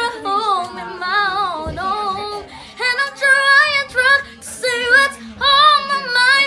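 A woman singing in a high voice with a wavering pitch, in short phrases, with a brief pause about two and a half seconds in.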